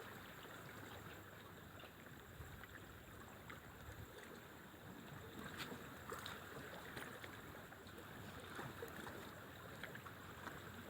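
Faint steady wash of water-side ambience, with scattered small ticks and clicks.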